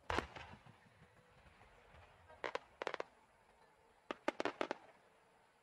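Aerial firework shells bursting: a loud boom right at the start, then two clusters of sharp cracking reports, one about two and a half seconds in and another about four seconds in.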